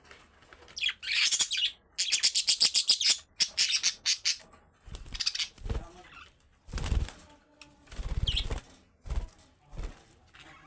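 Budgerigars chirping and fluttering their wings, with a rapid run of wingbeats in the first half. Several low thumps follow in the second half.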